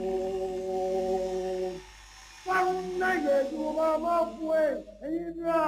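Singing voices without instruments: a long held note, a short break about two seconds in, then a moving melody.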